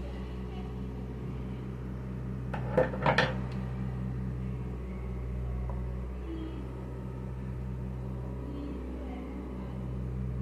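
Metal tools clinking against the Elgin sewing machine in a quick cluster about three seconds in while its shaft bushing screws are loosened, over a steady electric hum.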